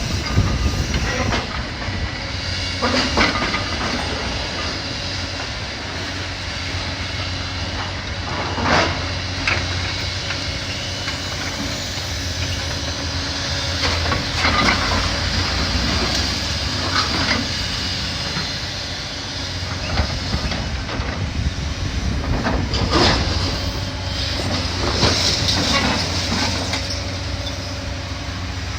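Heavy demolition machinery at work on a brick building: a diesel engine running steadily, with irregular crashes and clanks of falling brick and debris every few seconds.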